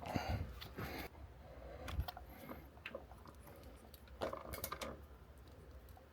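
Faint, scattered clicks and taps of a 1/4-inch ratchet and socket tightening engine-cover bolts, with a short run of clicks about four seconds in.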